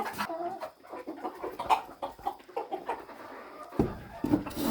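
Chickens clucking with short, repeated calls, with a patch of rough noise near the end.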